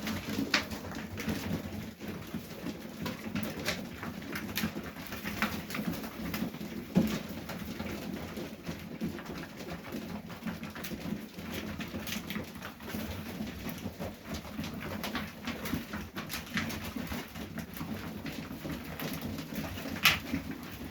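Domestic pigeons cooing steadily in a small loft, with scattered short clicks and rustles, the sharpest about 7 seconds in and near the end.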